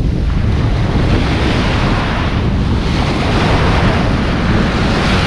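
Small sea waves breaking and washing up a beach, with wind buffeting the microphone.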